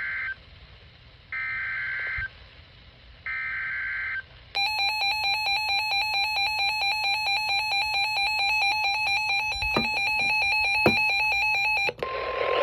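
Emergency Alert System SAME header: three short bursts of warbling two-pitched data tones, each under a second, about a second apart. Then the EAS attention signal, a loud, harsh alert tone pulsing rapidly. It cuts off suddenly near the end, and a steady single tone with hiss follows.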